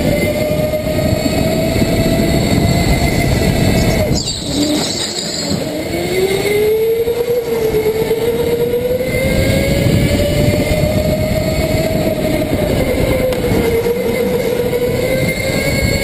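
A racing go-kart's motor heard from onboard, running at speed. Its pitch drops sharply about four seconds in as the kart slows for a corner, then climbs steadily back and rises and falls with the turns.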